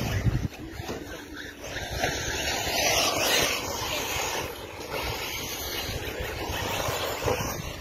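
Radio-controlled buggy running on a dirt track, its motor rising and falling, with wind noise on the microphone.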